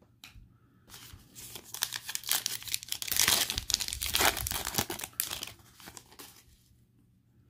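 Foil wrapper of a Panini Illusions football card pack crinkling and tearing as it is ripped open by hand. The crackle starts about a second in, is heaviest in the middle, and dies away about six seconds in.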